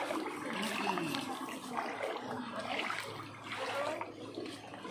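Clear shallow seawater washing and trickling over pebbles and around rocks at the water's edge, a steady rushing noise.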